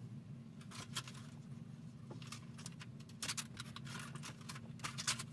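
Light plastic clicks and rattles as a loose plastic guard is worked into place behind a car's centre console, over a steady low hum.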